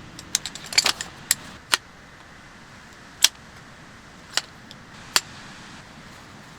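Sharp clicks and clinks of small hard objects being handled. A quick cluster comes in the first two seconds, then three single clicks about a second apart.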